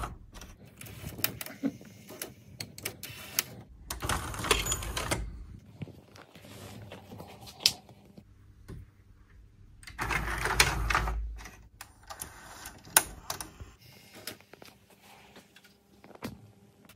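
Pioneer D-05 DAT deck's cassette-loading mechanism running: its gears and levers make many sharp clicks, with two denser bursts of motor-and-gear whirring, about four seconds in and again about ten seconds in.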